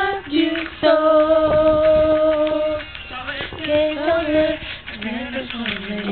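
Young women singing a pop song loudly together, amateur and close to the phone's microphone, with a long held note about a second in and a lower held note near the end.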